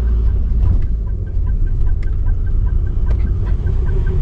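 RV engine and road rumble heard from inside the cab while driving, with a faint, even ticking at about four ticks a second.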